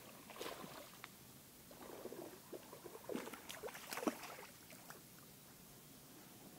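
Irregular splashing and small knocks of a hooked bass being fought and reeled to the side of a bass boat, busiest and loudest around four seconds in.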